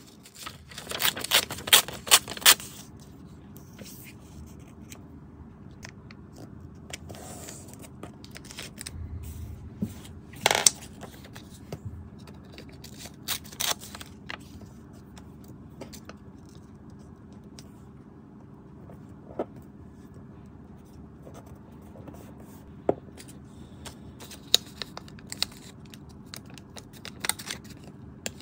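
Small pieces of paper and tape handled on a desk: a burst of crinkling and rustling at the start, a sharper snap about ten seconds in, then scattered light paper clicks and taps.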